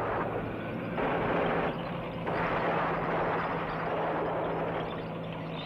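Battle noise on an old film soundtrack: a dense, steady rumble of a tank engine and combat, getting louder about a second in, with a steady low hum underneath.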